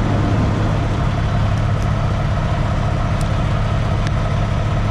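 Heavy truck engine idling: a steady, even low drone.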